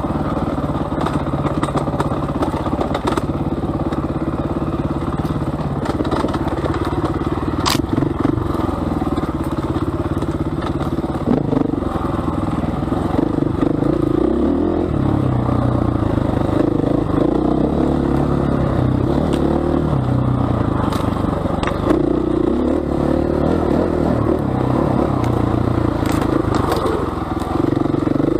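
Single-cylinder four-stroke enduro motorcycle ridden along a rough forest trail, its engine note rising and falling with the throttle. The bike clatters over the bumpy ground, with a few sharp knocks, the clearest about eight seconds in.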